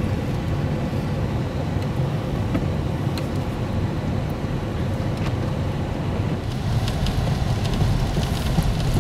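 Vehicle driving on a snowy road, heard from inside: a steady low rumble of engine and tyres, with scattered light ticks and clicks that come more often in the last couple of seconds.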